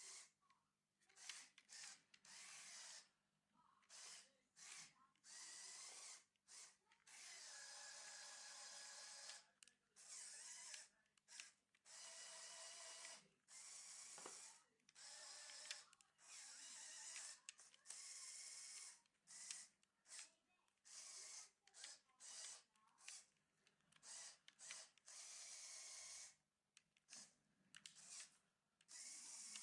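A Lego excavator's small electric motors and plastic gears whirring with a steady whine, in many short runs that stop and start again.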